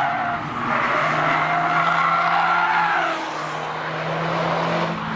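Mercedes-AMG A 45 hatchback cornering hard: its tyres squeal for about three seconds, then fade, while its turbocharged 2.0-litre four-cylinder engine keeps running underneath.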